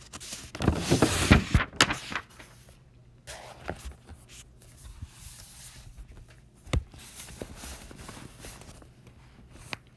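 Paper rustling loudly as a workbook page is turned, about half a second in and lasting a second or so, followed by a few light taps and knocks.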